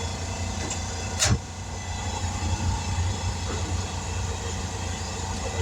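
A motor running steadily with a low hum, and one sharp click about a second in.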